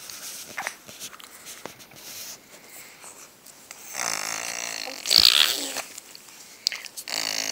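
Raspberries blown with the lips as fart sounds, a buzzing vibration. One starts about four seconds in and lasts about two seconds; another begins near the end.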